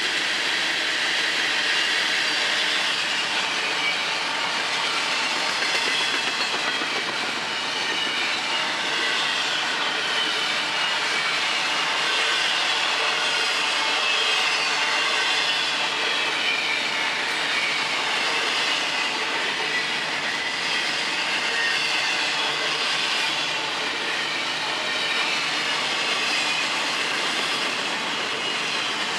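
Freight cars of a Florida East Coast Railway train rolling steadily past on the track: continuous wheel-on-rail noise and clatter, with a faint high wavering squeal from the wheels.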